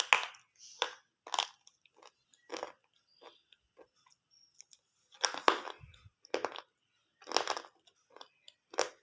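Close-up crunching and chewing of something hard and brittle, in irregular sharp crunches about once a second. The loudest bites come right at the start and about halfway through.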